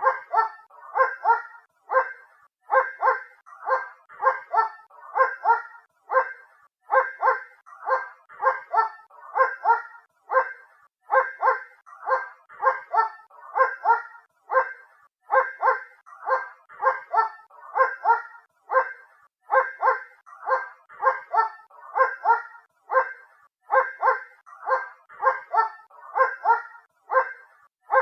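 A dog barking in the distance, over and over in quick runs of two or three barks with short gaps between them.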